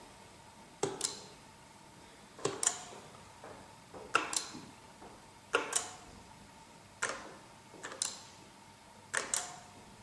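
Zigbee touch-panel light switches tapped in turn to switch a lamp on and off: seven short clicks about every one and a half seconds, most of them a quick double click.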